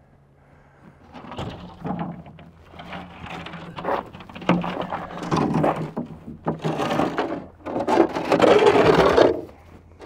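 Wooden blocks and board being shifted and slid under a boat hull's wooden cradle: irregular scraping and knocking that starts about a second in, loudest near the end.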